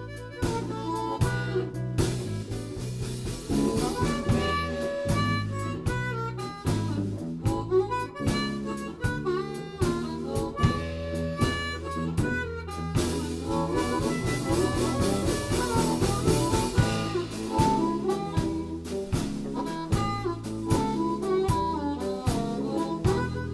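Live blues band playing an instrumental stretch: an amplified harmonica played through a hand-cupped microphone carries the lead with long held notes, over electric guitar, electric bass and a drum kit keeping a steady beat.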